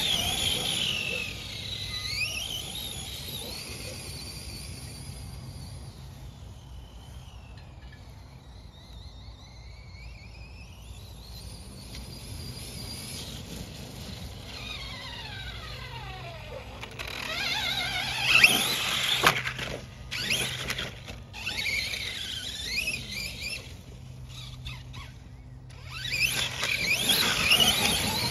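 Brushless electric RC truck's motor and drivetrain whining, the pitch gliding up and down as the throttle is worked, loudest in bursts about two-thirds of the way through and again near the end.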